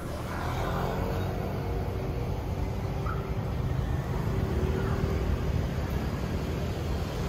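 Street traffic noise: a steady low rumble of passing vehicles, with a faint engine hum through the first few seconds.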